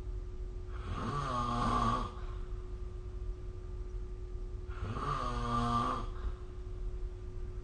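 A person snoring: two snores about four seconds apart, each lasting just over a second. A faint steady hum runs underneath.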